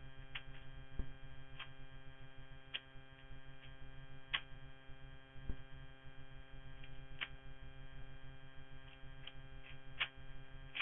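Rubik's cube being scrambled: irregular sharp plastic clicks as its layers are twisted, roughly one a second, over a steady electrical hum.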